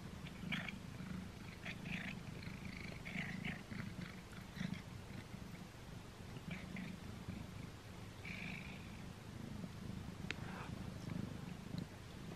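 Tabby cat purring steadily close to the microphone, with scattered crunchy chewing sounds as it gnaws a string cat treat.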